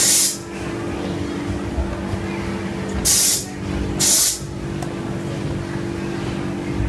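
Three short, loud bursts of hissing, at the start, about three seconds in and about four seconds in, over a steady low mechanical hum.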